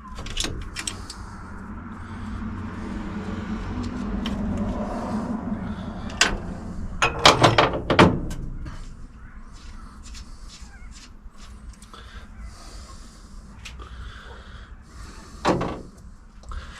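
Hand tools working lock nuts off a double-nutted manifold stud: scattered metal clicks and scraping, with a louder cluster of clanks about seven seconds in and another near the end, over a low steady hum.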